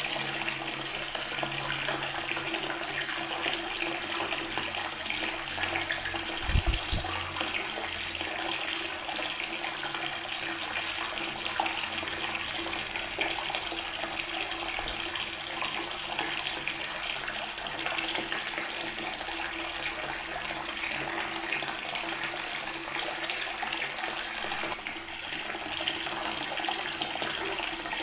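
Water from a tap running steadily and splashing onto natural stone. There is a brief low thump about six and a half seconds in.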